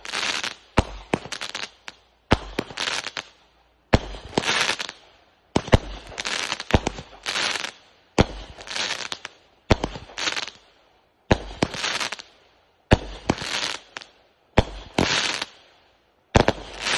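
Aerial fireworks from a consumer multi-shot cake firing shot after shot, about a dozen in a steady rhythm roughly a second and a half apart. Each shot is a sharp bang followed by about a second of crackling as the stars burst and sparkle.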